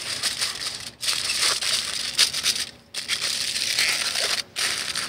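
Aluminium foil crinkling as it is folded and pressed by hand into a packet around wet wood chips, in stretches broken by brief pauses.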